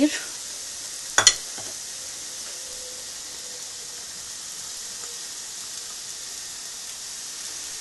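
Onion and spice mixture sizzling steadily in hot oil in a non-stick pan as mashed potato and crumbled paneer are added, with a single sharp knock about a second in.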